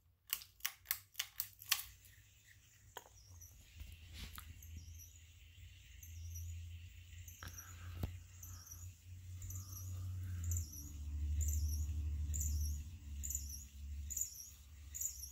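Canarm Twister ceiling fan motor starting up on low in reverse with a low hum, after a run of clicks in the first two seconds. From about five seconds in, a short high squeak repeats roughly every 0.7 s along with a rubbing sound. The owner puts this down to the fan rubbing on its housing because it is standing on the floor, not to bearing noise.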